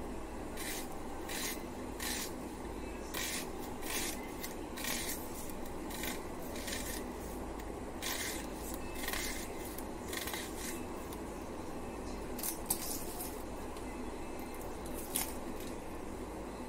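Vegetable being sliced against a boti, a curved kitchen blade held upright on a footboard: a run of short, sharp cutting scrapes, quick and uneven at first and sparser near the end, over a steady low hum.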